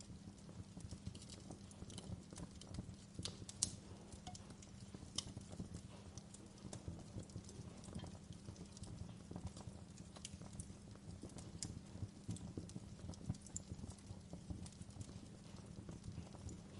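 Wood fire crackling: irregular sharp pops and snaps, one louder pop about three and a half seconds in, over a low steady rumble.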